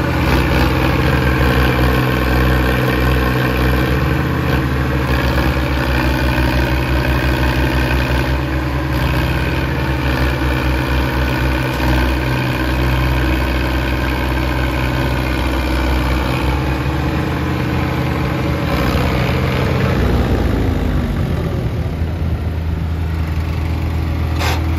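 Diesel tractor engines running hard under load in a chained tractor tug-of-war, a steady labouring note that sags a little about twenty seconds in as the engines lug down.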